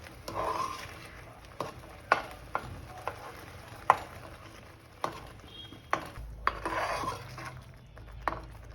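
Jaggery and ginger paste being stirred in a pan as the jaggery melts. The utensil scrapes and knocks against the pan at uneven intervals, about eight times.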